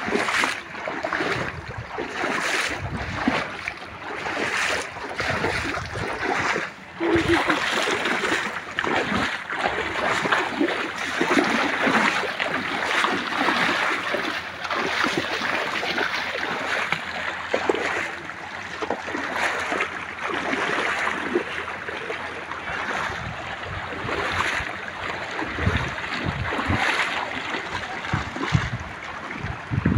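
Water of a shallow stream rushing and splashing, a steady noisy wash broken by many short irregular splashes.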